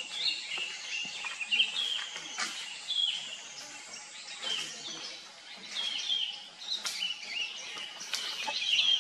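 Birds chirping in short, repeated calls, with a few faint clicks mixed in.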